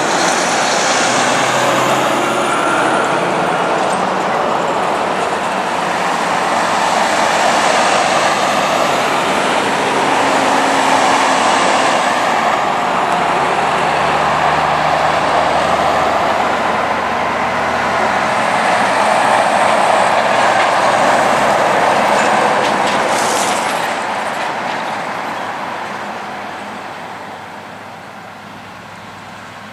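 Heavy trucks, a road train among them, and cars passing close by on a highway: diesel engine drone and loud tyre-on-road noise. It fades over the last few seconds.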